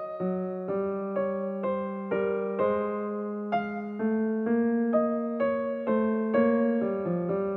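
Background music: a gentle piano-like keyboard melody, single notes struck about twice a second, each one fading before the next.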